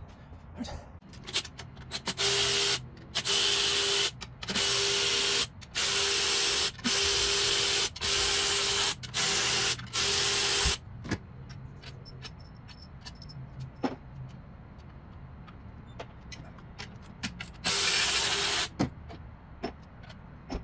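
Power ratchet spinning out the 12 mm bolts on an Acura TL's upper intake manifold: eight short runs of about a second each in quick succession, then one more near the end, with a few light tool knocks in between.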